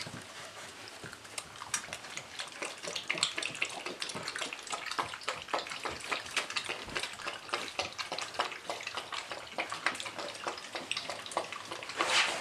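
American Staffordshire terrier puppies scrambling about, their claws clicking and scratching on a hard floor and crinkling the paper puppy pads. It comes as a dense, irregular run of small clicks and rustles that grows busier a few seconds in.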